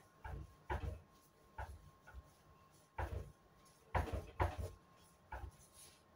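Irregular dull knocks and thumps, about eight of them, from dough being rolled and pressed by hand on a wooden cutting board, the board knocking against the table.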